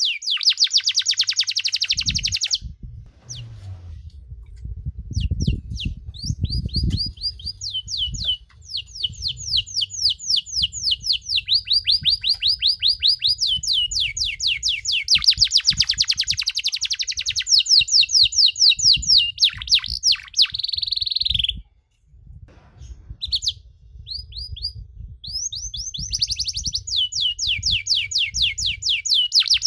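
Domestic canary singing a long song of fast trills, each a quick run of repeated sweeping notes, changing from one trill to the next, with brief pauses near the start and about two-thirds of the way through.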